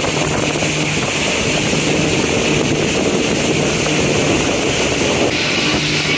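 Yamaha jet boat running on the water: a steady engine hum with wind buffeting the microphone. The engine note shifts slightly about five seconds in.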